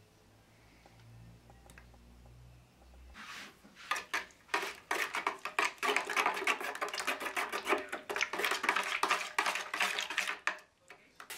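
Thick wall paint being stirred briskly in a plastic bucket, white being mixed into black: the stirrer scrapes and knocks against the bucket in quick, rapid strokes, starting about four seconds in and stopping just before the end.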